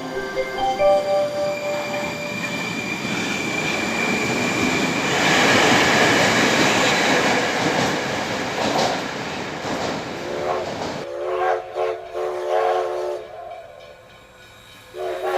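A train: a horn sounds at the start, then the rolling noise of the wagons swells to a loud rush in the middle and fades. A few short horn blasts follow near the end.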